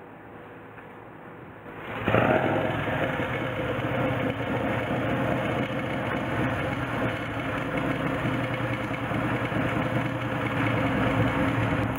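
Vintage 1928 Norton motorcycle's J.A.P. engine running steadily and loudly. It comes in abruptly about two seconds in, after a quieter stretch.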